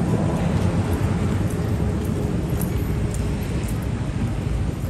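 City street ambience: steady noise of road traffic.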